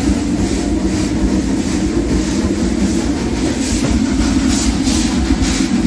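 Steady rushing hiss with a low rumble from a steam locomotive at rest, with a few louder irregular rushes about four to five seconds in.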